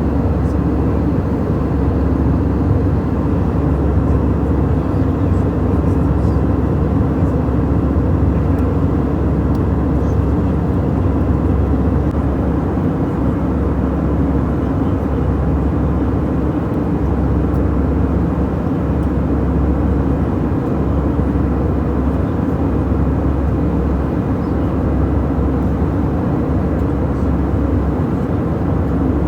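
Steady drone inside an airliner cabin in flight: jet engine and airflow noise, deep and unchanging.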